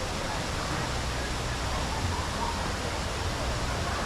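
Ocean waves washing steadily onto a beach, a continuous even rush of surf, with faint distant voices now and then.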